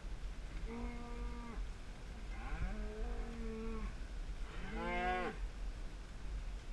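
Cattle mooing: three drawn-out calls, the last one shorter, over a low wind rumble.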